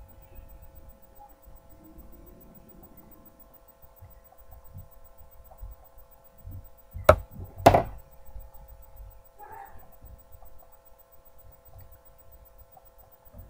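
Steady hum over low rumbling handling noise on the microphone, broken by two sharp knocks about half a second apart around the middle.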